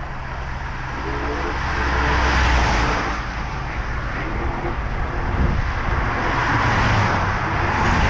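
Motor vehicle engine running with heavy noise of wind and travel over it.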